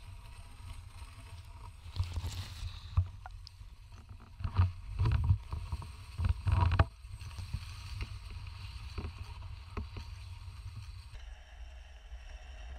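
Muffled underwater sound as picked up by a camera in a waterproof housing: a low steady rumble with irregular knocks and clicks, and a few louder bursts about two, five and seven seconds in.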